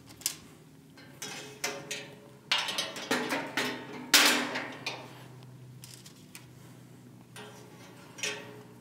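Plastic can shims being slid down the sheet-metal side wall of a Dixie Narco drink vending machine's column and dropped onto their support rods, knocking and clattering against the metal. A run of sharp knocks in the first half, the loudest about four seconds in, then a quieter stretch with a single knock near the end.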